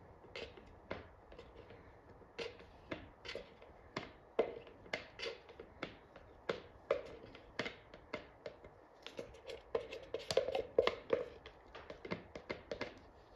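Wooden stir stick scraping and tapping against a flexible plastic mixing cup while the fibreglass resin is scraped out of it: irregular small clicks and scrapes, a couple a second, busiest about ten seconds in.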